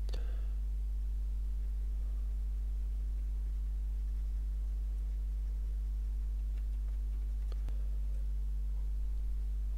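Steady low electrical mains hum with evenly spaced overtones, with a couple of faint ticks, one just after the start and one near the end.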